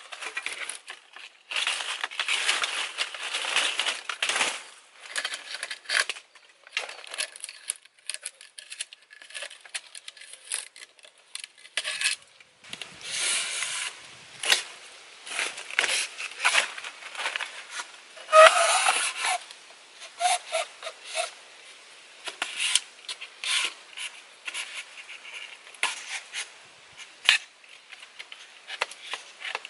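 Bamboo poles being handled and lashed onto a bamboo frame: irregular rubbing, scraping and rustling of bamboo and binding strips, with one louder squeaky rub a little under two-thirds through.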